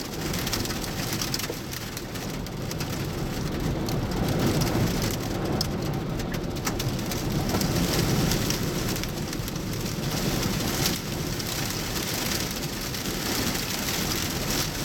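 Heavy wind-driven rain pelting a vehicle in the gusts of a thunderstorm's rear-flank downdraft: a loud, steady rush with scattered sharp hits on the body and glass.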